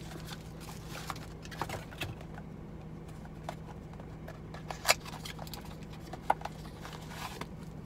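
Sunglasses and their fabric pouches and packaging being handled: scattered light clicks and taps, with two sharper clicks about five and six seconds in, over a steady low hum.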